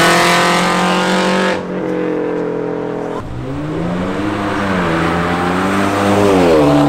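Sports car engines revving hard under acceleration, heard across several abrupt cuts: first a held high rev, then revs that climb, fall and climb again before dropping back near the end.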